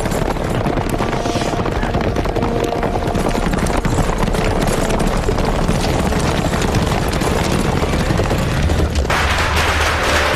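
Staged battle sound effects: a dense, continuous clatter of fighting with men shouting. About nine seconds in it changes abruptly to firecrackers crackling.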